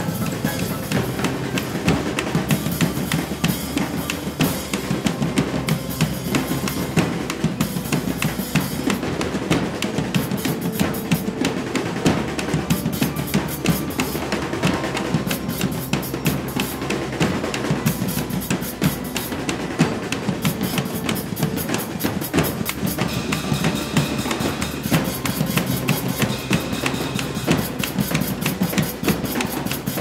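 Percussion-heavy music with rapid, continuous drumming. High, ringing pitched tones join in over the last several seconds.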